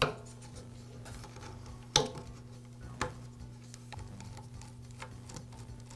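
Sharp small clicks and taps of metal on plastic as wire terminals are worked off a chop saw's trigger switch with a screwdriver: a loud click at the start, another about two seconds in and a third about a second later, with fainter taps in between.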